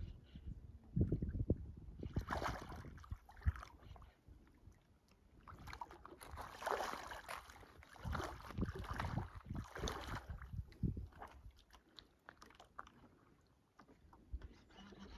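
Legs wading through shallow lake water: irregular sloshing and splashing, loudest a couple of seconds in and again from about six to ten seconds in, with low thumps underneath.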